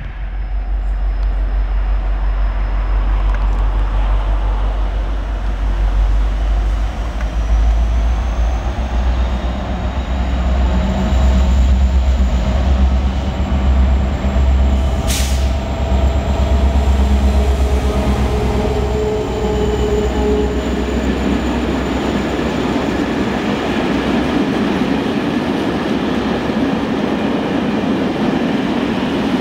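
Europorte Euro 4000 diesel locomotive approaching and passing, its EMD two-stroke V16 engine giving a loud low throb. The engine fades after about eighteen seconds into a steady rumble and clatter of loaded tank wagons rolling by on the rails. There is one sharp click about halfway through.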